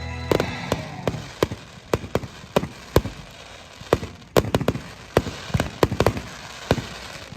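Fireworks shells bursting in a rapid, irregular run of sharp bangs, two or three a second.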